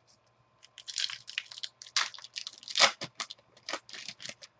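Foil wrapper of a baseball card pack being torn open and crinkled by hand: a run of crackling rustles starting about a second in, loudest near the middle.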